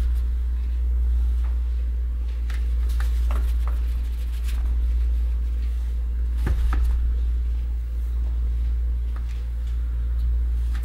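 Steady low hum, with scattered faint light taps and clicks from raspberries and cardboard berry baskets being handled during sorting.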